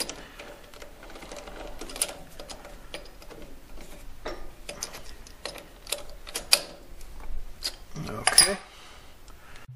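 Scattered small metal clicks and scrapes of a key worked in a lathe's 5C collet chuck as the collet is tightened onto a rod, with a slightly louder cluster of knocks about eight seconds in.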